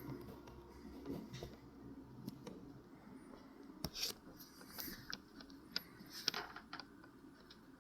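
Quiet background with scattered faint clicks and taps, a few sharper ones about four to six and a half seconds in.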